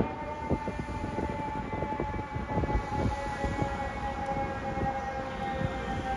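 Fire truck's mechanical siren winding down in one long, slowly falling tone, over the low rumble of street traffic.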